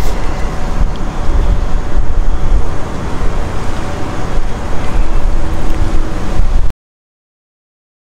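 Steady, loud rumbling background noise with a faint steady hum in it, cutting off abruptly to total silence near the end.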